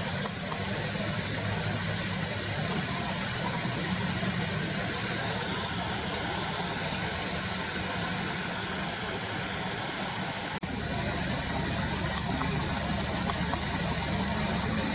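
Car engine idling steadily, with a high thin tone recurring every few seconds over it and a brief dropout about two-thirds of the way in.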